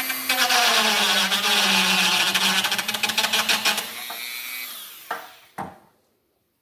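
Rotary tool spinning and grinding down an extra-long male plug on a power window switch: the motor's pitch drops under load while it grinds for about four seconds, then it comes off the work and winds down. Two sharp clicks follow near the end.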